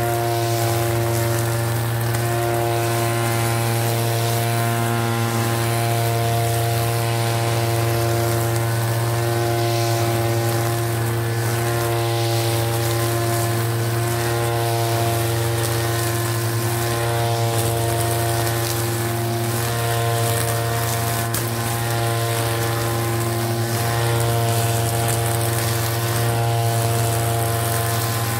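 Backpack brush cutter's small petrol engine running steadily at a constant pitch while cutting grass.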